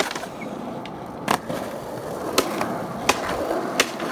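Skateboard wheels rolling on concrete, with several sharp clacks of the board striking the ground, the loudest about a second in.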